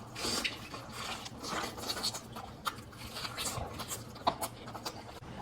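Eating and food-handling sounds: irregular scratchy rustles and soft clicks, with no steady tone.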